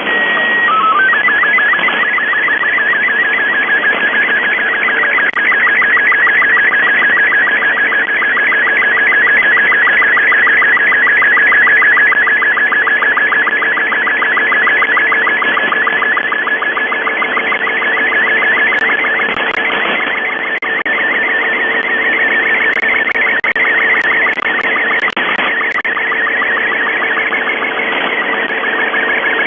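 Shortwave radio reception of UVB-76's 4625 kHz channel: steady static hiss with a constant low hum, under a fast-pulsing electronic warble from a jamming signal. The warble steps through a few short tones about a second in, then carries on steadily.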